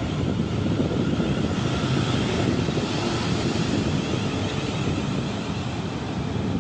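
Train running, a steady loud rumble with a rushing noise over it.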